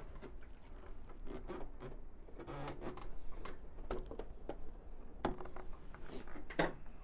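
Gloved hands working around a motorcycle's propped-up fuel tank and bodywork: soft rubbing and scraping with scattered light clicks and knocks of handled plastic and metal parts.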